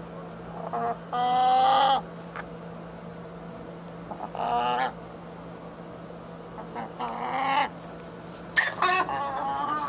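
A chicken making repeated drawn-out calls, about six in a row with pauses between them, the longest and loudest one about a second in.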